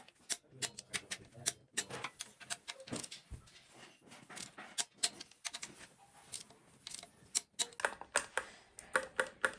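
Ratchet wrench clicking in quick irregular runs as bolts on the camshaft bearing caps of a Ford Transit diesel cylinder head are run down.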